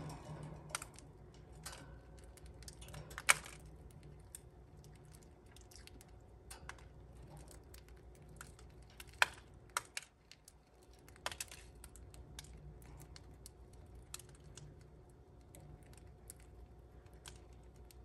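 Budgerigar pecking at a seed cookie held in the fingers: irregular small clicks and cracks of the beak on the seeds, with a few sharper clicks, over a faint low hum.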